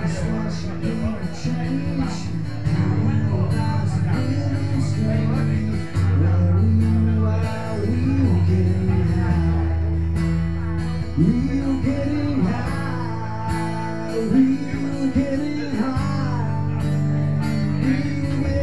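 Background music with a steady, held bass line and sung vocals, over the chatter of a bar crowd.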